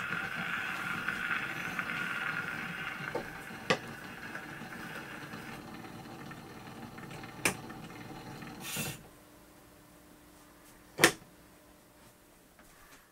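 Victor VV-VI acoustic gramophone at the end of a 78 rpm record: the last sound of the orchestra dies away into the steady hiss and crackle of the needle in the grooves, with a few sharp clicks. About nine seconds in there is a short scrape, after which the hiss stops and only a faint click follows.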